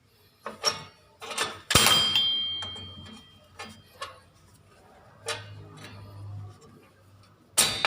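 Metal tools and drum-brake parts clinking and knocking as they are handled. About two seconds in comes one sharper metallic clang that rings on briefly, and there are a few more knocks near the end.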